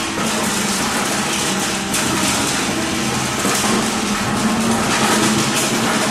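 Free-improvised noise music: a dense, continuous scraping and hissing texture with many short rough strokes over a low steady hum, from the performers working objects and instruments rather than playing notes.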